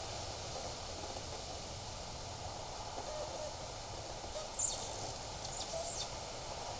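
Steady outdoor background hiss with faint low chirps, broken a little past the middle by two short, harsh, high-pitched sounds about a second apart.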